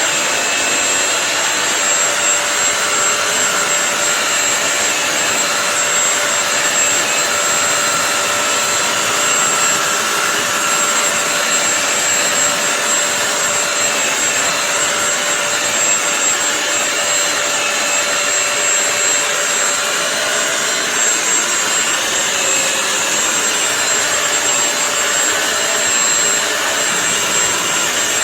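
BISSELL CrossWave wet-dry floor cleaner's motor running steadily: a loud, even rush of air with a faint high whine.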